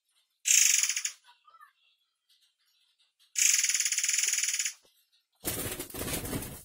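Caged murai air mancur songbird giving two sharp, harsh rasping calls: a short one, then a longer one about three seconds later. Near the end a rougher, deeper burst of noise follows.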